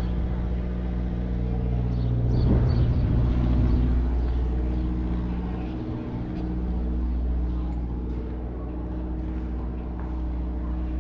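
A large engine idling steadily: a deep, even hum that dips briefly about six seconds in.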